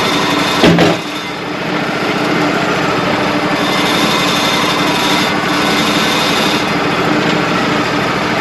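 Wood-Mizer LT35 portable band sawmill running steadily while sawing a white pine log. There is a loud knock under a second in.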